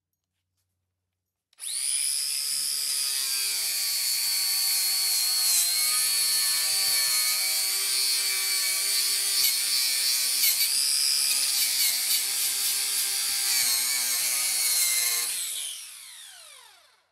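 Electric angle grinder with a wire wheel, starting up about a second and a half in and running at full speed with a steady high whine while it brushes rust and paint off a steel car body panel. Near the end it is switched off and the whine falls in pitch as the wheel spins down.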